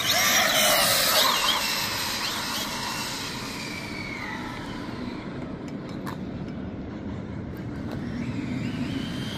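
Sensored brushless motor of an 8S RC car whining in quick up-and-down pitch slides as it speeds up and slows in the first couple of seconds, then a steadier, quieter hiss as the car runs on over wet asphalt.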